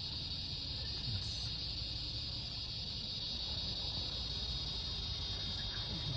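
Steady high-pitched insect chorus at dusk, an even shrill hiss, over a low steady rumble.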